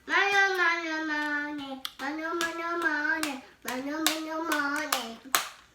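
A small child's voice calling out in three long, drawn-out, sung notes, followed by a few sharp hand smacks or claps near the end.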